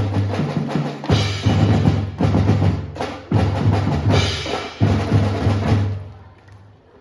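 Marching percussion section playing a drum feature: pitched bass drums and snare strikes in accented phrases with rolls. The sound dies away near the end.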